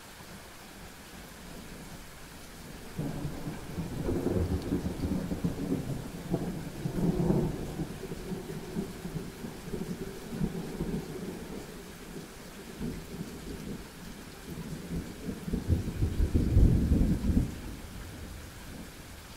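Thunder rumbling over steady rain: a long rolling rumble builds about three seconds in and eases off, then a second, louder swell comes near the end before dying away.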